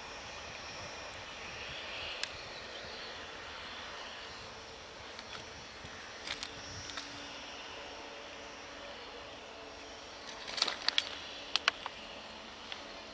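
Express train running away along the track, heard at a distance from behind: a steady rumble of wheels on rails. Several sharp clicks come near the end.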